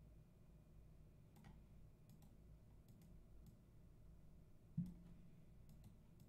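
Near silence with scattered faint computer mouse clicks as on-screen text is selected and highlighted. About five seconds in comes one louder, short low thump.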